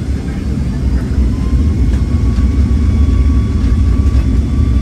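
Boeing 757's jet engines spooling up for takeoff, heard inside the cabin: a heavy low rumble that grows louder, with a thin whine that comes in about a second in and slowly rises in pitch.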